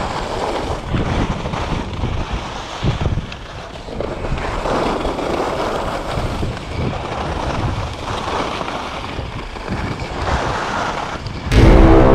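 Skis running fast downhill on packed snow, their edges hissing and scraping, with wind rushing over the microphone. Music cuts in near the end.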